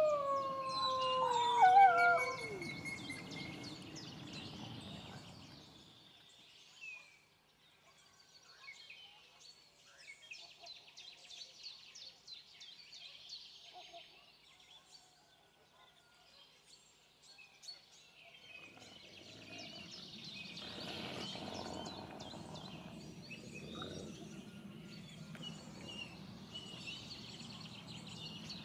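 Gray wolf howling, one long steady note that wavers and falls in pitch before breaking off about two seconds in. Small birds chirp faintly after it, and in the second half a steady rushing noise rises.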